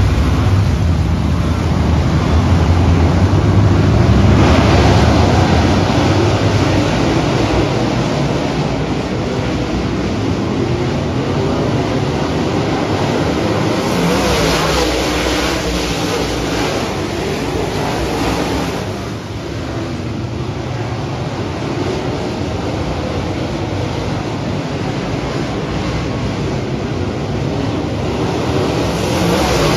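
Dirt modified race cars' V8 engines running together on a dirt oval, loudest over the first few seconds as the pack passes close, then settling into a steady mass of engine noise from cars around the track.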